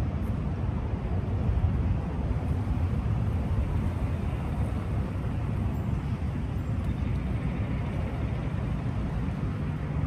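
Steady low rumble of outdoor noise: wind buffeting the microphone mixed with distant road traffic.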